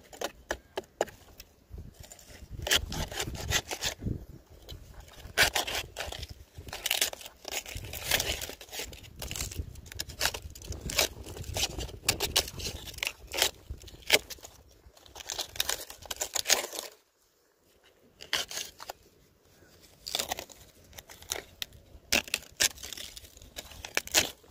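Dry leaf sheaths and fibre of a palmyra palm crown being torn and pulled away by hand, crackling and rustling in irregular bursts, with a short pause about two thirds of the way through.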